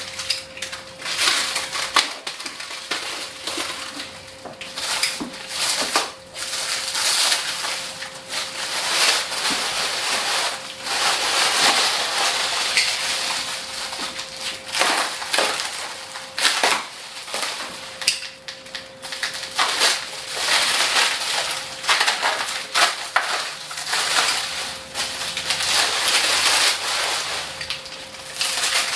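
Packing material on a newly delivered screen-printing exposure unit being cut, torn and crumpled off by hand: continuous crackling and crunching with frequent sharp tearing snaps. A faint steady hum sits underneath.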